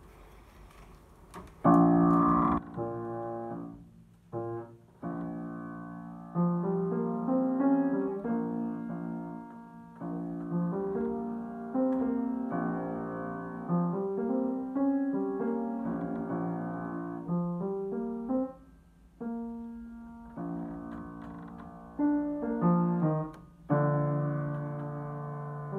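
Upright piano played in a slow blues, chords and melody notes struck and left to ring out. The playing begins about two seconds in, with short breaks between phrases.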